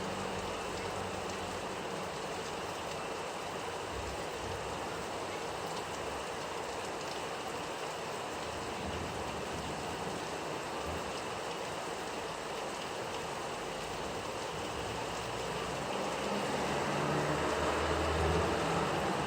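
Steady rain falling, with a low rumble that swells near the end.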